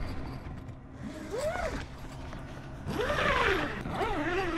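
Rooftop tent's door zipper being pulled shut in two strokes, a short one about a second and a half in and a longer one near the end, each rising and then falling in pitch as the pull speeds up and slows.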